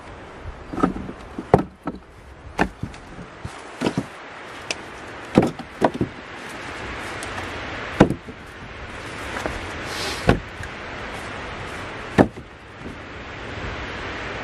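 About ten sharp, irregular knocks and clicks, the loudest about eight and twelve seconds in, over a steady rush of wind noise.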